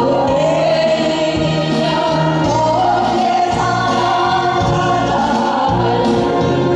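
Two women singing a Korean folk song (minyo) together through microphones over an amplified accompaniment with a steady bass line.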